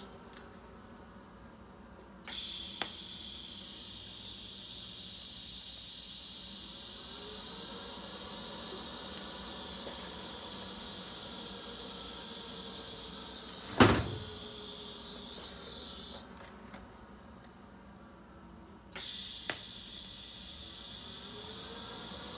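TIG welding arc running on a cast iron manifold and stainless V-band at about 120 amps: a steady hiss with a high whine. The arc cuts out twice and restarts with a sharp click. There is one loud crack about fourteen seconds in.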